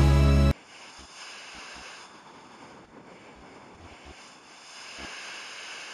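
Music cuts off suddenly about half a second in, giving way to outdoor wind on the microphone with the wash of sea water along a rocky shore; a few brief low thumps from wind buffeting.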